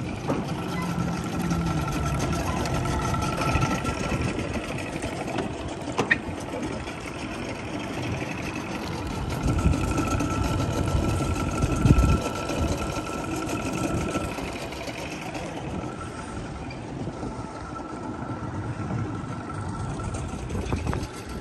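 Motorboat engine running steadily, with a thin steady whine that comes and goes, and a single sharp click about six seconds in.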